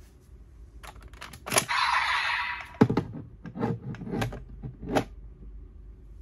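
Hard plastic toy parts clicking and clunking as the DX Fantasy Raise Buckle is handled: a few small clicks, a short hissing burst about a second and a half in, then four louder knocks a little under a second apart.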